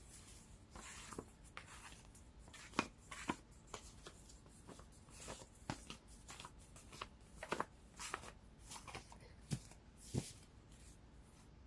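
Faint handling of cards: soft rustles and light taps scattered through, as a deck is gathered and shuffled.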